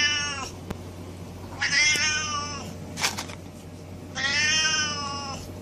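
Siamese cat meowing over and over in long, drawn-out calls: one trails off just after the start, then two more of about a second each follow, with a short click between them.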